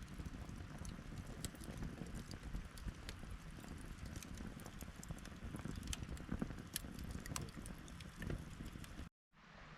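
Campfire crackling, with scattered sharp pops over a low rumble; about nine seconds in it cuts off suddenly to a quieter, steady hiss.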